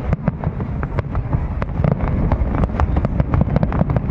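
Fireworks going off in a dense, continuous barrage: rapid sharp bangs and crackles, several a second, over a steady low rumble.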